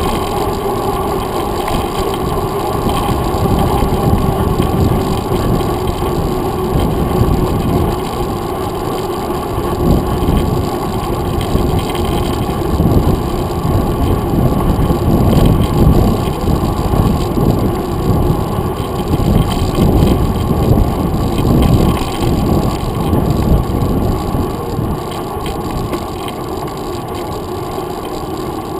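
Mountain bike riding along a paved trail, heard through a GoPro Hero 2 on its handlebar mount: a steady, deep rumble of wind and tyre and frame vibration, with little high sound, that swells and eases with the ride.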